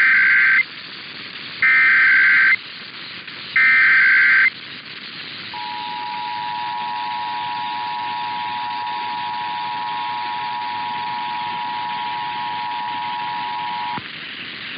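Emergency Alert System SAME header: three one-second bursts of shrill warbling data tones about two seconds apart. About a second later comes the EAS two-tone attention signal, held steady for about eight seconds before it cuts off, over a faint steady hiss.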